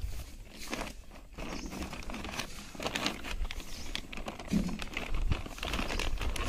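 Plastic sheet lining a fish basket crinkling and rustling, with irregular soft knocks, as large fish are handled and shifted inside it.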